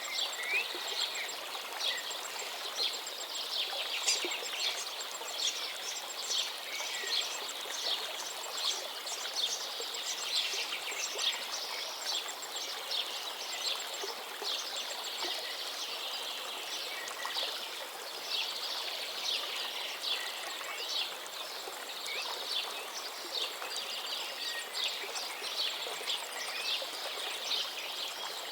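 Many birds chirping and twittering throughout, over the steady sound of a flowing stream.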